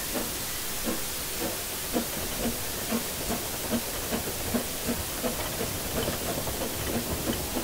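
LOWA 50 PS narrow-gauge steam locomotive, built in Babelsberg in 1951, pulling away under steam: a steady hiss of steam with exhaust chuffs that quicken from about two to about four a second as it gathers speed.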